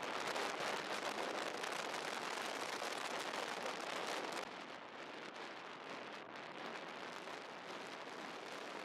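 Steady rushing noise of wind and tyres on tarmac, picked up from a moving vehicle; it drops in level about four and a half seconds in.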